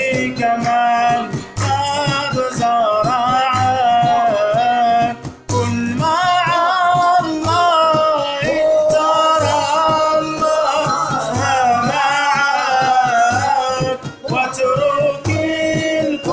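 Male voices singing an Arabic religious madih chant, a lead voice with others, accompanied by an oud and a jingled hand frame drum beating a regular low pulse. The singing breaks briefly about five and a half seconds in, then carries on.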